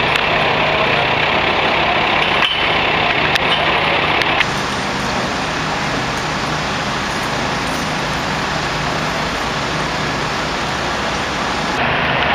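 Steady drone of idling diesel engines from fire and rescue trucks, with an abrupt change about four seconds in to a smoother, hissier engine noise.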